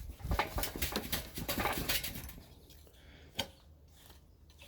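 Metal clanking and knocking from a homemade power hammer's linkage being rocked by hand, a quick run of rattling knocks for about two seconds, then one more knock.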